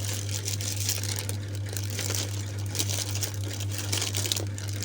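Plastic packaging crinkling and rustling as it is handled, in irregular bursts, over a steady low hum.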